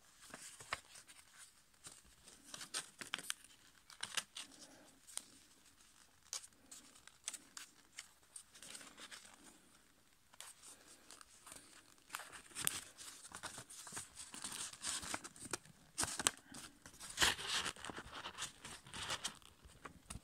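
A sheet of A5 copy paper being folded and creased by hand close to the microphone: crisp rustling with many sharp crackles, denser in the second half.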